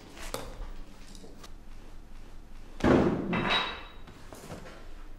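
A single loud thud about three seconds in, with a couple of faint knocks before it.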